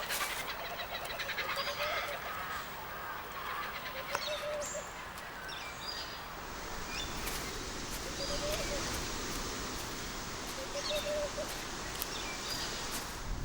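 Scattered short bird calls, each rising and falling, over a steady hiss of outdoor background noise.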